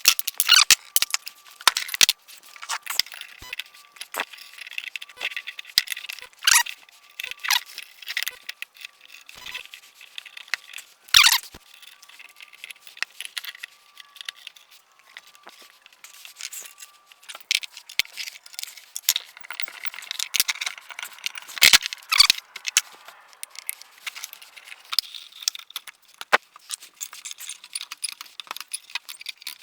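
Small metal engine parts clinking and rattling as they are handled and set down, with irregular sharp clacks; the loudest come about 11 and 22 seconds in.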